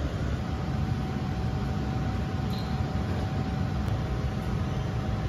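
Steady low rumble of café background noise, with a faint steady hum coming in about half a second in.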